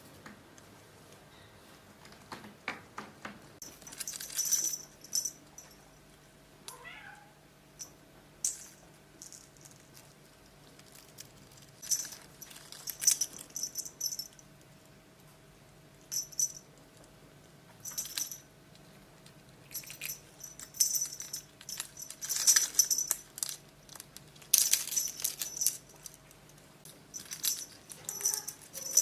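Domestic cats: an occasional short meow among intermittent bursts of high, scratchy rustling, over a faint steady hum.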